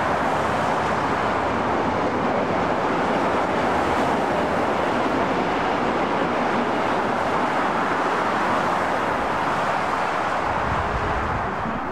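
Steady roar of multi-lane freeway traffic, the tyre and engine noise of cars streaming past below, easing slightly near the end.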